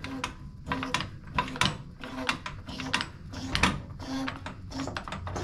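Hydraulic floor jack being worked by its long handle to lower a zero-turn mower's front onto a jack stand: a string of short squeaks and metal clicks, roughly one every half second to second.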